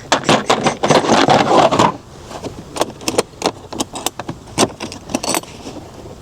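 Small metal tools, sockets and Torx bits, clinking and rattling as a tool set is rummaged through: a dense jangle for about two seconds, then scattered single clicks and taps.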